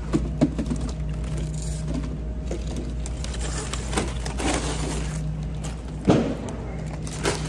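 A few sharp knocks and rustles from shopping items being handled, the loudest about six seconds in, over a steady low hum.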